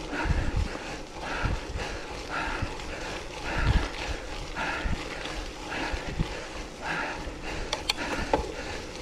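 Bicycle rolling over rough, muddy trail with wind buffeting the microphone, and hard breathing that swells about once a second.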